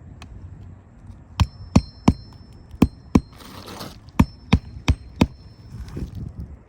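Hammer driving roofing nails through a shingle: nine sharp, ringing strikes in two runs of quick blows, with a short rustle between the runs.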